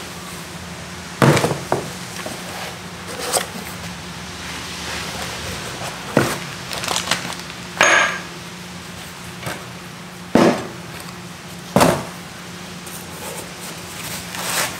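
Cast iron fabrication squares knocking and clinking as they are handled and set down on a wooden workbench among cardboard boxes: about seven separate knocks, one with a brief metallic ring about eight seconds in. A steady low hum sits underneath.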